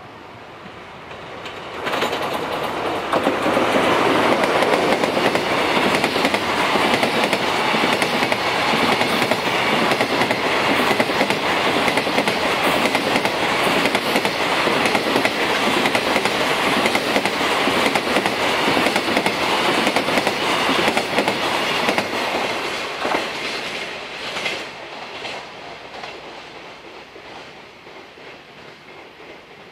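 DF200 diesel locomotive passing at speed, followed by a long train of container wagons rolling past with quick wheel clatter over the rail joints. The noise sets in sharply about two seconds in, holds steady, then fades away over the last several seconds as the end of the train draws off.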